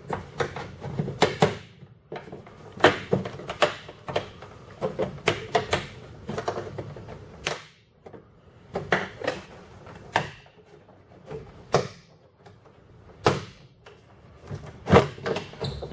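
Plastic door panel of a 1998 Chevy pickup being pried off with a trim clip tool: an irregular run of sharp clicks, snaps and knocks as the panel's push-in retaining clips pop loose and the panel shifts against the door.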